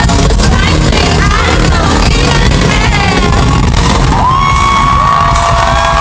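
Live pop concert recorded from the crowd: loud music with heavy bass and singing. About four seconds in, the dense music gives way to several long held high notes over the crowd.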